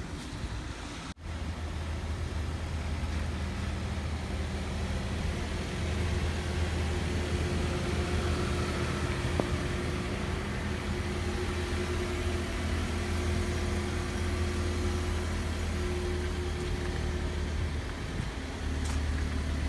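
A motor running steadily with a low, even hum, over light outdoor hiss.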